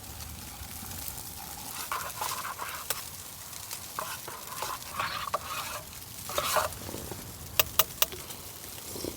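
A spoon stirring hot soup in short, irregular scraping strokes, followed near the end by three quick sharp clicks.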